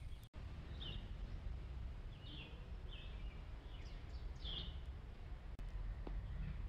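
Birds chirping: about six short, high calls a second or so apart, over a steady low rumble of outdoor background noise.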